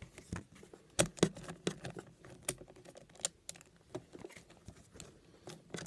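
Irregular light clicks and taps of a screwdriver working on the bolt of a car battery terminal clamp, a few per second with uneven gaps.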